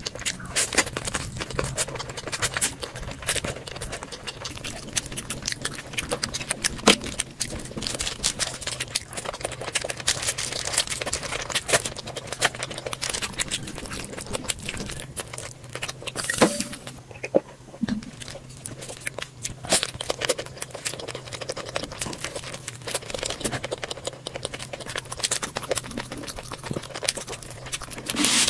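Close-miked eating sounds: wet chewing, lip smacks and many small mouth clicks as a person eats saucy fried noodles and spicy chicken by hand.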